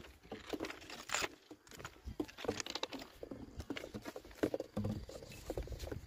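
Footsteps crunching on railway ballast stones, an irregular patter of gravel crunches and clicks from someone walking along the track.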